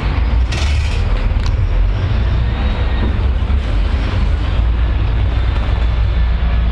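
Public transport vehicle in motion: a steady, loud low rumble with running noise over it, and a brief hiss about half a second in.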